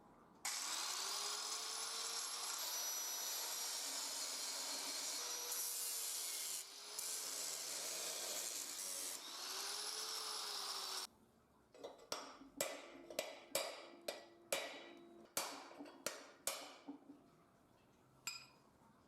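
A handheld power tool working metal for about ten seconds, its pitch sagging and recovering several times as it bites. It stops suddenly and is followed by about a dozen sharp separate taps or knocks on metal.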